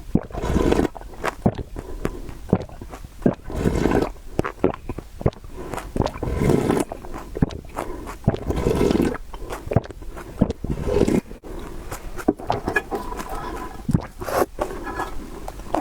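Noodles in soup being slurped in repeated long slurps, a few seconds apart, with wet chewing and short mouth clicks between them.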